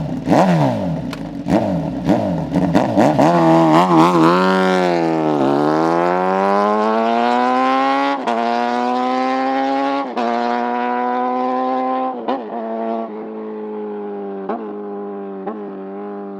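Suzuki GSX-S1000's inline-four engine revving hard through a full exhaust system with a titanium GP-style tip: quick throttle blips for the first few seconds, then a long rev up that is held for several seconds with two brief dips, before it drops back toward idle with a couple of small blips near the end.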